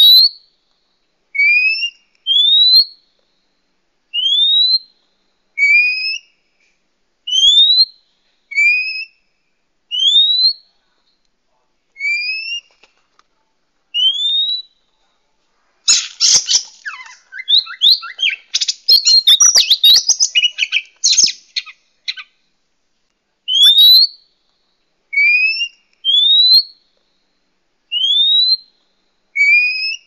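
Oriental magpie-robin giving a series of short rising whistles, about one a second, alternating between a lower and a higher note. Around the middle the whistles give way to several seconds of harsh, rapid chattering, then the rising whistles resume.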